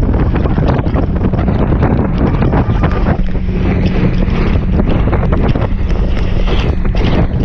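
Strong wind buffeting the microphone on a fast-moving inflatable boat, with a steady low hum coming in about three seconds in.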